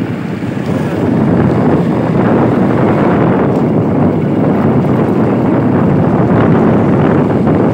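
Wind rushing over the microphone on a moving motorbike, with the bike running underneath, getting louder about a second in.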